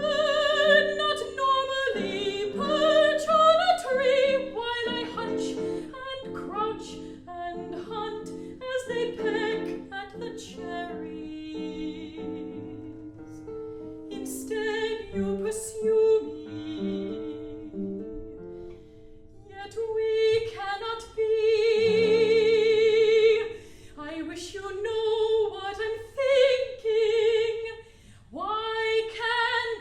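Mezzo-soprano singing an art song with vibrato over plucked guitar accompaniment, holding one long note about three quarters of the way through.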